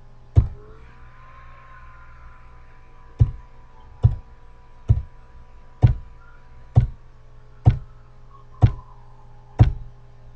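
Nine sharp clicks of a computer control stepping through a slide animation. The first comes alone, then after a pause the other eight follow at about one a second, over a steady low hum.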